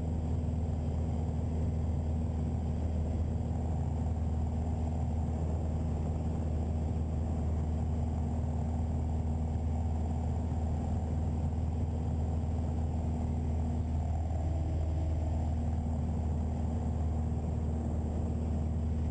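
Steady engine and propeller drone of a Piper PA-28-181 Archer's four-cylinder Lycoming O-360 in cruise flight, heard inside the cabin. It holds at an even, unchanging level.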